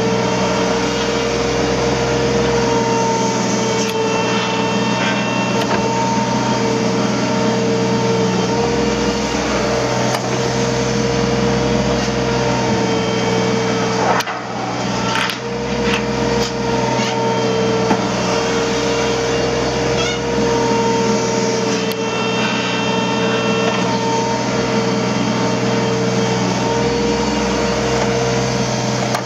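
Hydraulic excavator running steadily: a diesel engine note with a steady high whine over it. The sound drops briefly about halfway through.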